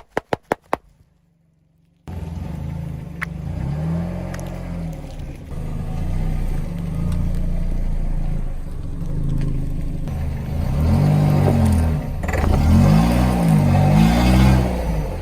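About six sharp clicks in the first second, then near silence. From about two seconds in a car engine runs steadily, its revs rising and falling several times, most strongly near the end.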